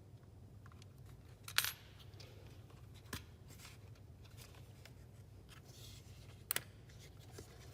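A few sharp metallic clicks and clinks as chainsaw chain brake parts are handled and refitted: a loud one with a brief ring about a second and a half in, a lighter one about three seconds in, and a quick double click near the end.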